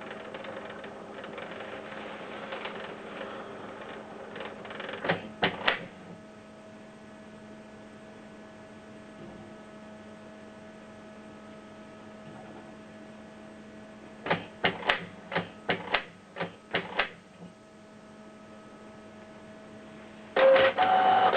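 Canon PIXMA MG2470 inkjet printer running its print-head nozzle-cleaning cycle: a steady motor hum with a couple of clicks about five seconds in, then a run of about eight sharp clicks around the fourteen-second mark. Louder mechanism noise starts near the end.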